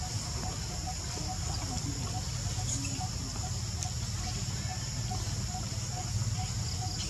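Forest background of a steady high insect drone, with a short note repeating evenly about three times a second, over a low rumble.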